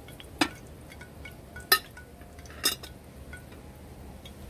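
Three sharp metallic clinks, a second or so apart, of a utensil knocking against a cooking pot.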